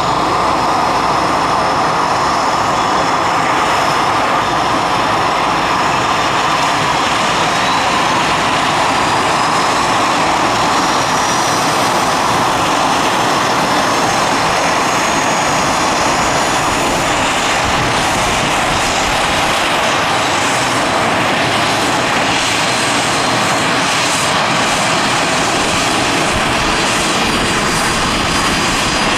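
Leonardo AW169 helicopter's twin Pratt & Whitney PW210 turboshaft engines and rotor running steadily, with a faint high turbine whine that slowly rises in pitch over the first several seconds.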